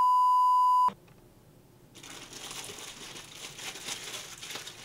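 A steady single-pitch test-tone beep, the kind played under colour bars, lasting just under a second and cutting off suddenly. From about two seconds in comes the soft crinkling of a food wrapper being handled.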